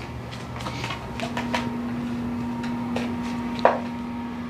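Soft knocks and taps of a person getting up from a kneeling lunge beside a chair and stepping on an exercise mat, the loudest tap about three and a half seconds in. A steady low hum comes in about a second in and runs under them.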